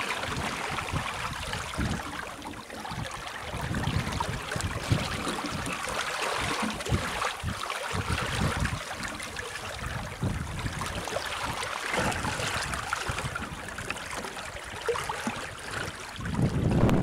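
Sea water rushing and churning past the stern of a sailing yacht under way, a steady hiss, with wind buffeting the microphone in uneven low gusts and one louder buffet near the end.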